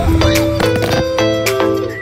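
Background music with a melody of plucked notes over a regular beat. A brief scuffling noise comes in the first second.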